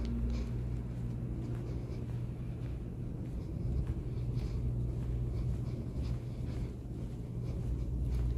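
Steady low rumble with faint, roughly regular footsteps of someone walking on carpet tile.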